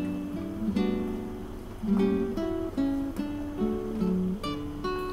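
Background music: an acoustic guitar playing a plucked, strummed melody.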